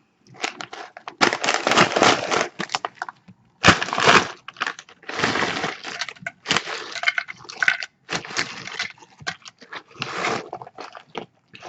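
Potato chips crunching loudly as they are bitten and chewed, in irregular bursts of crackle with short pauses between them.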